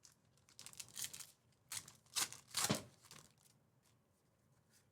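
Trading cards and their packaging being handled: a handful of brief rustles and slides in the first three seconds, then quiet.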